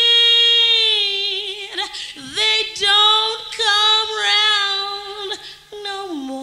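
A woman singing solo and unaccompanied, a slow blues ballad line held on long notes with vibrato, with short breaks between phrases; near the end she slides down to a lower held note.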